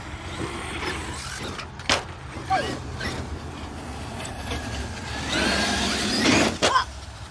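Electric RC truck driving on concrete: a motor whine that rises and falls with the throttle over tyre noise, loudest in a burst of acceleration near the end. Sharp knocks about two seconds in and shortly before the end.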